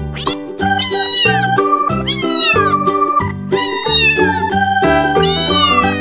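Kitten meowing four times, high-pitched, each meow falling in pitch, about a second and a half apart, over background music with a steady beat.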